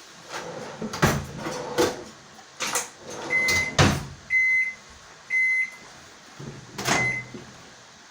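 Four short, high electronic beeps from a household appliance, irregularly spaced about a second apart, among several sharp knocks and clunks.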